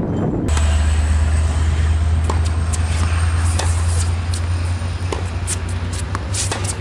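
Tennis balls struck with rackets in a cross-court backhand rally, a sharp pop every second or so, over a steady low rumble.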